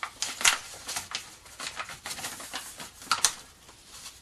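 Folded origami paper crinkling and crackling as fingers press along its creases, in irregular sharp crackles with the loudest near half a second in and about three seconds in.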